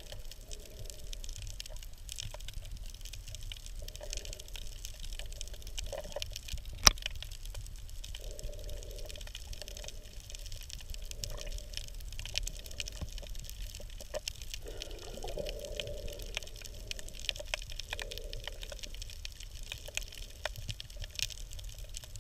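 Underwater ambience picked up by a camera just below the sea surface: a steady low rumble with a dense crackle of fine clicks and soft swells of water movement, and one sharp click about seven seconds in.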